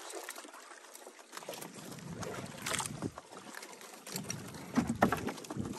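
Water splashing and lapping around a small boat, with a few sharp knocks about five seconds in.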